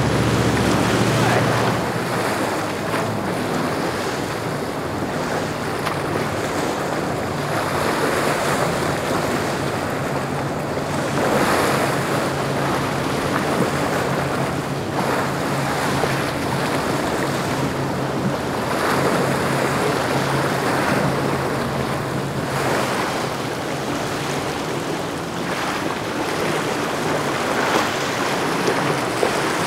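Wind buffeting the microphone and waves washing, swelling and easing every few seconds. Under it is the low steady drone of a passing boat's engine, strongest in the first two seconds.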